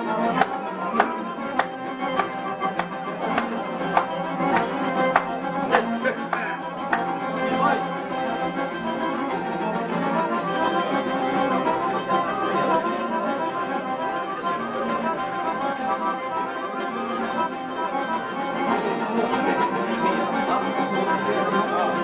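Albanian folk music: long-necked lutes plucked in sharp strokes over held accordion chords. The plucked strokes stand out in the first seven seconds or so, then the sustained accordion tones dominate.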